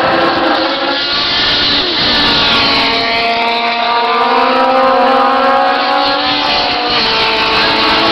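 Several historic Formula 2 racing car engines run together at high revs, their notes overlapping. About two seconds in, the pitch drops as the cars brake and change down for the corner, then it holds and climbs again as they accelerate away.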